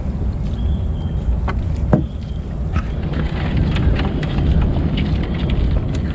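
Crab gill net being hauled by hand over the side of a boat: scattered small knocks, clicks and drips, with a sharper knock about two seconds in, over a steady low rumble.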